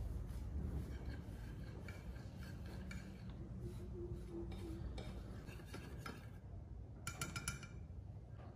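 Wire whisk stirring dry flour mix in a glass baking dish, its wires scraping and ticking against the glass, with a quick run of sharper clinks near the end.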